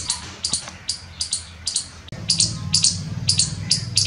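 Indian palm squirrel calling from a tree: a rapid series of sharp, high-pitched chirps, about two to three a second, over a steady low hum.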